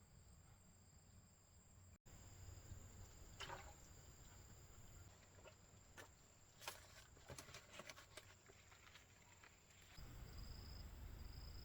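Near silence: a faint steady high whine with a few soft clicks and rustles scattered through the middle.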